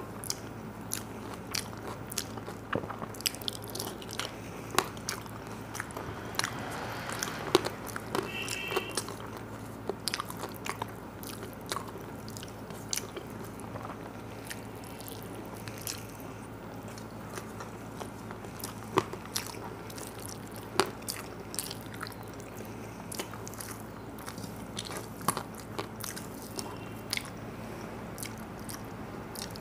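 Close-up eating sounds: a person chewing a mouthful of food, with frequent sharp wet mouth clicks and occasional crunches, over a steady low hum.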